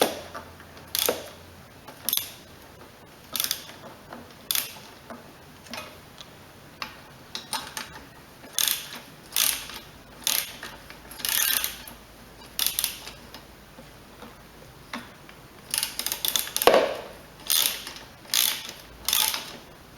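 Ratchet wrench clicking in short runs, about one stroke a second with brief pauses, as it works a tight bolt loose on a lawnmower carburetor.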